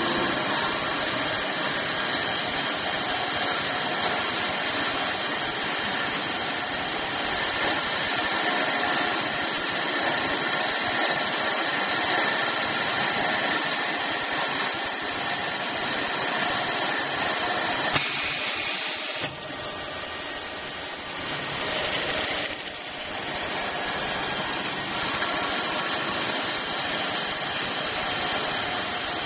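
Steady mechanical noise from a CNC drilling and flame-cutting machine at work on metal, dipping in level for a few seconds about two-thirds of the way through.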